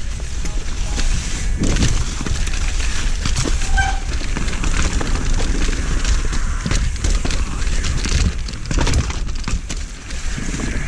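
Mountain bike descending a dirt trail at speed: wind rushing over the camera microphone, tyres running over dirt and patchy snow, and the bike rattling and knocking over bumps, with a short squeak about four seconds in.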